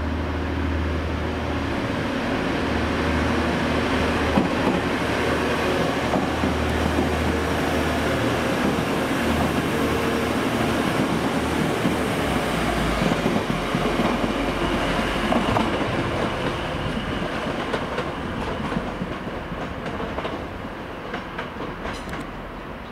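TransPennine Express class 185 diesel multiple unit passing through a station: diesel engine hum and the rumble of wheels on rail, building and then fading away over the last few seconds.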